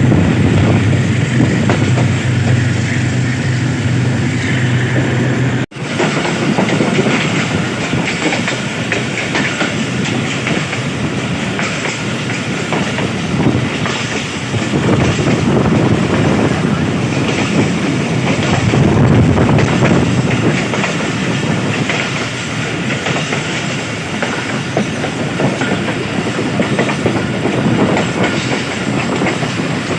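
Passenger train running at speed, heard from on board: a steady rumble with the wheels clattering over the rail joints, and a very brief break in the sound about six seconds in.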